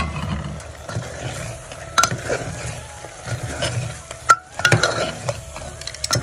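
Steel spoon stirring mutton pieces through masala in an aluminium pressure cooker, the meat sizzling as it fries, with several sharp clinks of the spoon against the pot.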